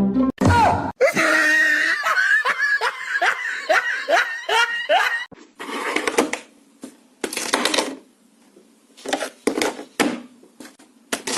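Laughter in a quick run of short bursts, each falling in pitch, then a series of short, irregular noisy bursts.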